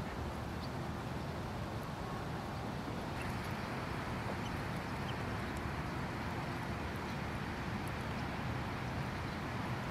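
Steady outdoor background noise with a low rumble, and a few faint, brief high ticks scattered through it.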